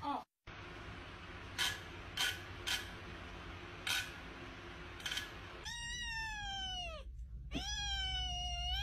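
A cat meowing twice in long drawn-out calls in the second half, the first falling in pitch, the second rising and then held. Before that, a faint steady hum with a few short sharp clicks.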